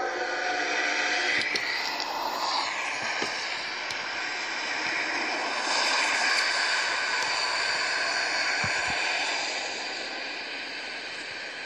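Steady rushing noise of a passing train right after its horn stops, fading toward the end. It is heard thin and without low rumble because it is played through a computer's speaker and re-recorded.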